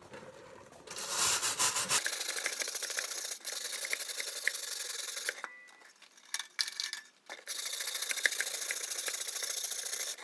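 A hand tool scraping burnt-on creosote and soot from inside a metal bee smoker, a steady scratchy rasping in two long stretches with a short pause about halfway through.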